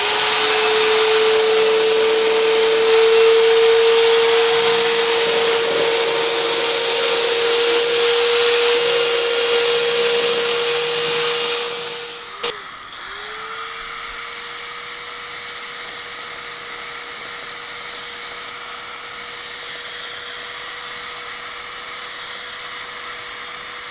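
Harbor Freight 1/2-inch bandfile belt sander running steadily with a steady motor whine, sanding the cut edge of a plexiglass aircraft canopy to take out high spots and stress risers. Loud in the first half, then a click about halfway through, after which the whine goes on more quietly.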